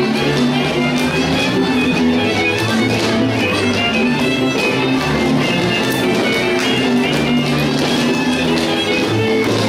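Transylvanian folk dance music for Kalotaszeg dances: a fiddle carrying the melody over a steady low bass line.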